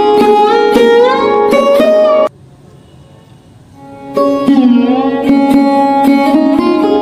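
Background instrumental music of plucked strings with bending notes. It cuts out for about two seconds midway, then starts again.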